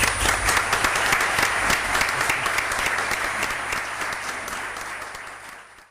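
Audience applauding: a dense patter of many hands clapping that breaks out at the start and fades away near the end.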